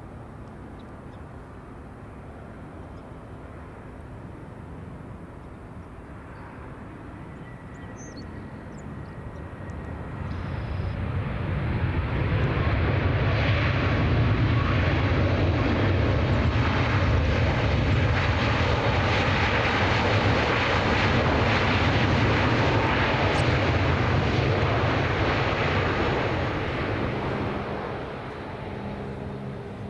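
A Boeing 737 MAX 8's jet engines during landing. A distant rumble swells to a loud, steady roar about a third of the way in, holds for roughly fifteen seconds, then dies away near the end.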